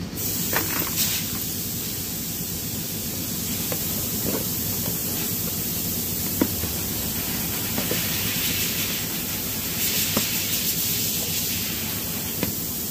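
Steady hiss of background noise, with a few faint, light clicks scattered through it.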